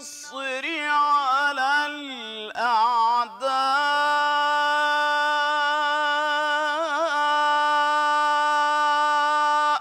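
A solo male voice sings an Egyptian ibtihal, an unaccompanied Islamic devotional chant. Melismatic, wavering runs give way to one long held note of about six seconds, with a brief tremble partway through.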